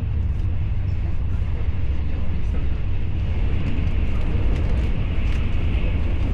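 Steady low rumble and running noise of a moving vehicle.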